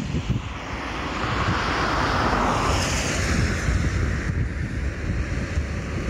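Wind buffeting the microphone in gusts, with a rushing swell of noise that builds over the first couple of seconds and fades again about four seconds in.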